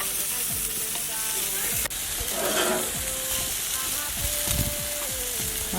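Chicken sizzling on a barbecue grill: a steady hiss of juices and sauce on the heat, with a single sharp click about two seconds in.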